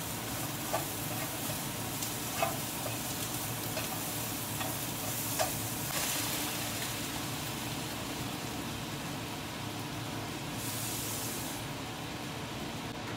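Vegetables sizzling in a hot non-stick wok, stirred with a spatula that taps against the pan a few times in the first half. About six seconds in, liquid is poured into the hot pan and sets off a louder hiss, which then settles to a steady sizzle.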